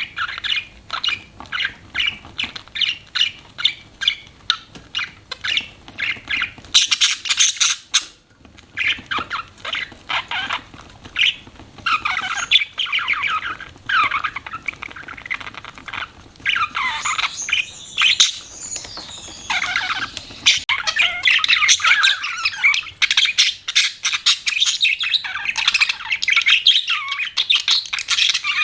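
Budgerigars chirping: about three quick, evenly repeated chirps a second for the first several seconds, then a busier warbling chatter of chirps and squawks with gliding notes.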